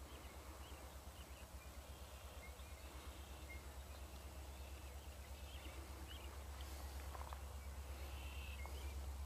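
Faint, distant low rumble of Union Pacific diesel freight locomotives, pulsing quickly and slowly growing louder as the train approaches. Faint bird chirps sound over it.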